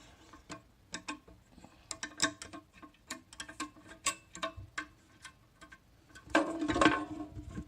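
Small metal parts of a safe's key lock mechanism clicking and tapping as they are moved by hand, in scattered irregular clicks, with a louder rattling clatter about six and a half seconds in.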